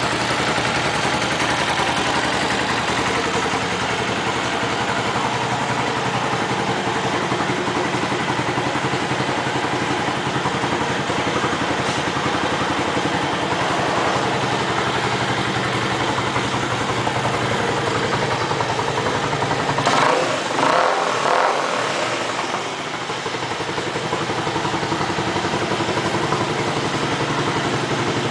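Dafra Kansas 150 motorcycle's single-cylinder engine idling steadily through a modified exhaust, with two quick throttle blips about twenty seconds in.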